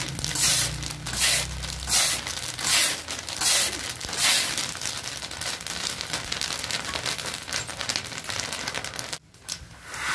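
Black chickpeas being stirred and tossed with a metal scoop in a large hot roasting pan: rhythmic scraping swishes about every 0.7 s at first, then a steady dry rattling crackle of the chickpeas moving in the pan.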